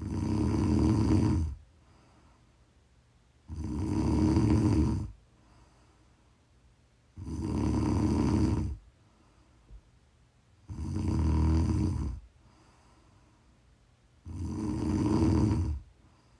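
A woman snoring in her sleep: five snores, each about a second and a half long, coming at a regular pace of one every three and a half seconds or so, with quiet gaps between.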